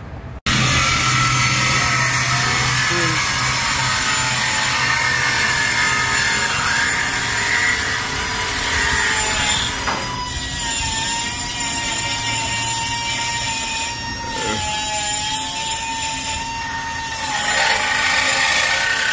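Handheld power saw cutting through the Impala's old steel exhaust pipe: a loud, continuous cut with a steady whine that wavers slightly. It starts abruptly about half a second in and eases briefly a few times.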